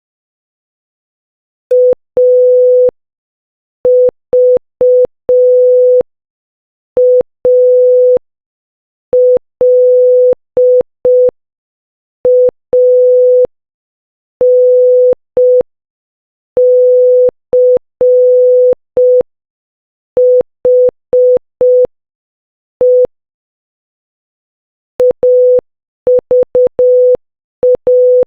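Morse code for AVALANCHE (.- ...- .- .-.. .- -. -.-. .... .) keyed as a single steady electronic beep. Short dots and long dashes are spelled out slowly, then the word starts over at a faster speed near the end.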